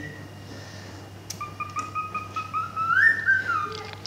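Cockatiel whistling. A quick run of short notes starts about a second in, then rises to a higher note that is held briefly and slides back down.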